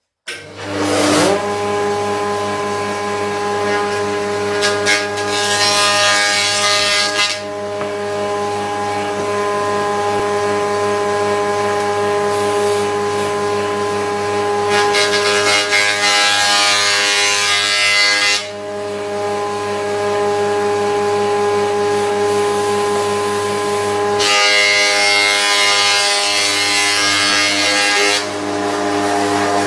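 Jointer switched on, spinning up and running with a steady hum. A wooden board is pushed across the cutterhead three times, each pass a loud rushing cut lasting two to four seconds, about five, fifteen and twenty-four seconds in.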